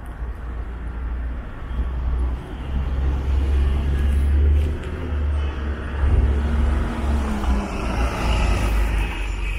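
Downtown street traffic: cars and other vehicles passing, under a steady low rumble.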